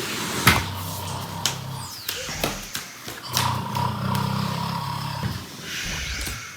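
A man snoring: two long low snores, each lasting about two seconds.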